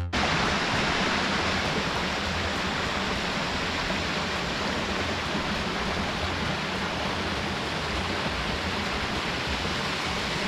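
Waterfall, water rushing in a steady, unbroken noise.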